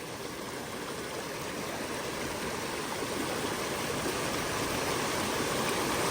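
River water rushing over rocks, a steady rush that grows gradually louder.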